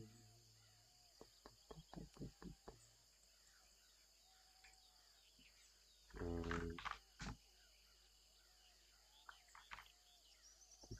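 Quiet outdoor background with faint bird chirps over a steady high hiss. A few soft clicks come in the first seconds, and one short, louder pitched, voice-like sound comes about six seconds in.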